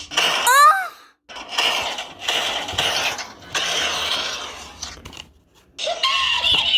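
A string of short sound effects: a brief warbling whistle about half a second in, then about four seconds of noisy crashing and clattering like breaking dishes or glass, and a new sound starting near the end.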